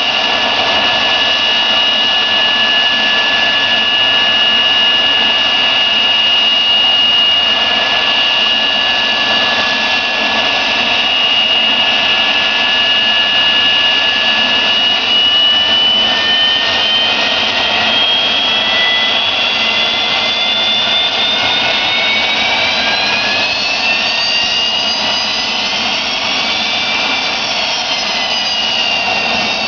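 Boeing 737-200's Pratt & Whitney JT8D turbofan engines running as the jet taxis: a loud roar with a high steady whine. About halfway through, the whine begins to rise in pitch and splits into several gliding tones.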